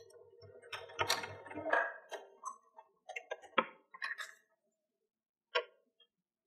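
Janome sewing machine stitching briefly with a motor hum and rapid ticking of the needle, stopping after about two seconds. Scattered clicks and taps follow as the stitched fabric is handled at the machine.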